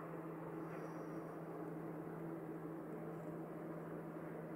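Steady running noise inside an electric passenger train pulling out of the station: a constant low hum over an even rumble.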